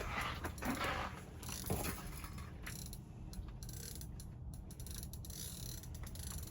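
Ice fishing reel ratcheting with the line under load from a hooked sturgeon during the fight, over a steady low hum.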